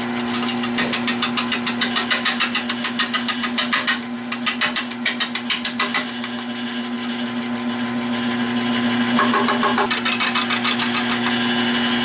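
Nova 16/24 wood lathe running with a steady hum while a bowl gouge cuts an irregular, uneven oak bowl blank, the cut ticking rapidly, about seven times a second, as the tool meets the uneven wood. The ticking stops for a couple of seconds in the middle and picks up again briefly.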